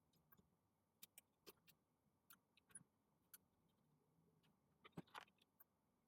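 Near silence, broken by faint, scattered small clicks and taps of small hand tools working on a laptop display, with a brief cluster of them about five seconds in.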